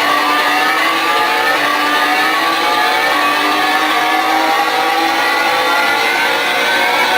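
Experimental electronic music: a loud, dense layer of many tones slowly gliding upward together, with no beat.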